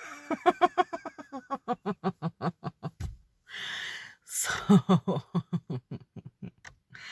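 A woman laughing: a long run of rapid pitched 'ha-ha' pulses, a breathy intake of breath around the middle, then a second, shorter run of laughter.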